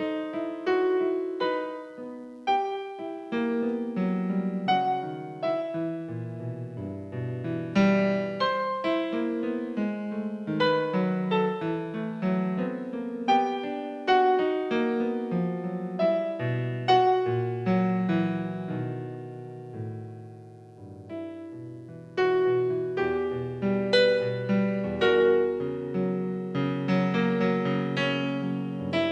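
Solo piano playing a melody over chords, each note ringing and fading. The playing softens about twenty seconds in and comes back fuller a couple of seconds later.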